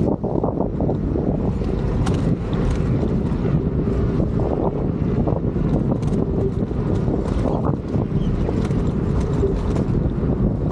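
Wind buffeting the microphone of a camera carried on a moving electric scooter, a loud steady rumble, with scattered small clicks and knocks.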